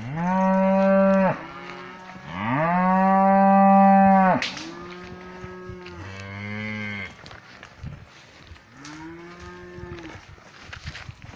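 Cattle mooing: five long calls from a herd, two loud moos in the first four seconds followed by three quieter ones.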